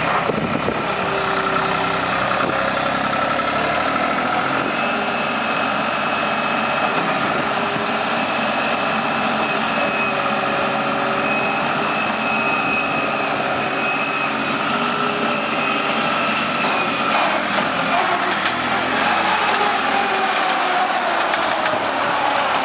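New Holland LS180 skid steer running steadily, its engine with a high whine over it; in the last few seconds a tone falls and then rises in pitch.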